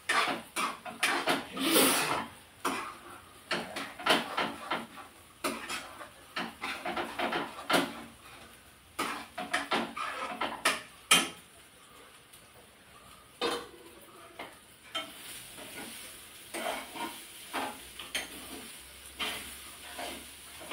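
A spatula scraping and knocking against a frying pan while upma is stirred on a gas stove. Quick, dense scrapes and clinks fill the first half, then only a few scattered knocks follow.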